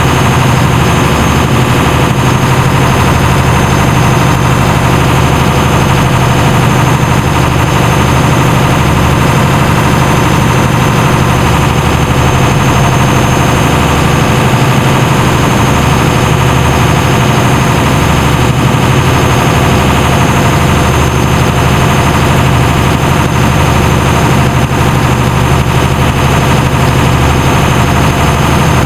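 Engine of a small fishing-boat-style charter boat running steadily under way: a constant low hum, with rushing noise over it.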